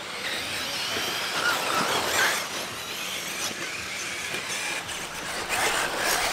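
Electric RC buggies racing on a dirt track: high motor whines that rise and fall in pitch as the cars speed up, slow and pass, over a steady hiss.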